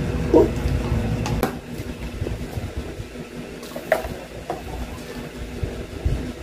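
Thick apple shake poured from a plastic blender jar into a plastic cup, with a few short glugs and light plastic knocks. A low rumble drops away about a second and a half in.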